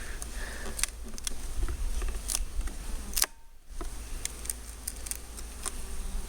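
Scattered clicks, taps and scrapes of a tightly fitted bee package cover being pried and worked loose by hand, over a steady low rumble.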